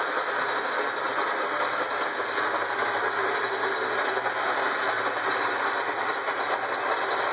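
Steady, even din of running machinery with a faint low hum, no breaks or distinct knocks.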